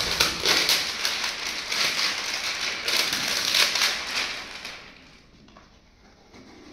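Packaging of a cardboard protein box crackling and crinkling as it is pulled open by hand. The crackling is dense and continuous for about four and a half seconds, then drops to faint handling.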